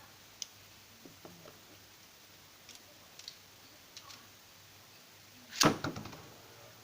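Light plastic clicks of Beyblade parts being handled, then about five and a half seconds in a loud sudden burst trailing off in a short rattle of clicks.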